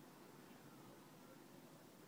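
Near silence: room tone with a faint steady hiss.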